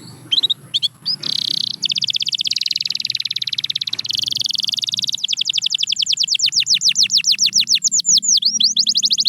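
Canary singing: a few scattered chirps, then a very fast buzzing trill from about two seconds in, changing about five seconds in to a run of quick downward-sweeping notes that slow toward the end.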